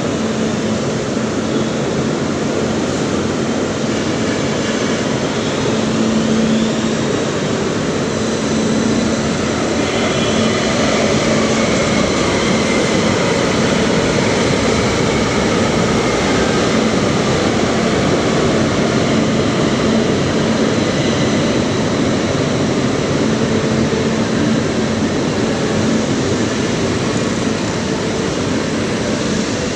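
Manila LRT Line 1 light-rail train pulling out of the platform and running past: a steady rumble of wheels on rail with a constant low hum, and a motor whine that rises in pitch over the first several seconds as the train gathers speed.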